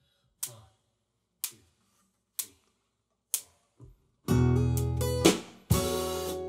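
Four sharp clicks about a second apart count in a band, which comes in on the next beat about four seconds in with strummed acoustic guitar, electric bass and drum kit hits.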